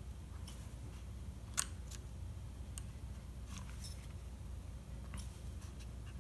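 A few faint, scattered clicks and ticks as the spur gear and clutch bell of a Traxxas Revo 3.3 nitro are worked by hand to check the gear mesh, the loudest about a second and a half in, over a low steady hum.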